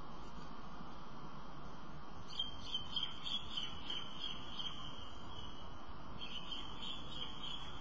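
A high-pitched chirring animal call in two stretches, starting about two seconds in, breaking off briefly, then resuming, over steady background hiss.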